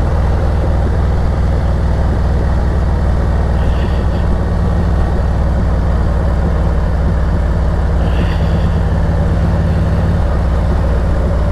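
Harley-Davidson Road Glide Special V-twin running steadily at cruising speed, heard under loud wind and road noise on the riding microphone. The engine note shifts slightly near the end.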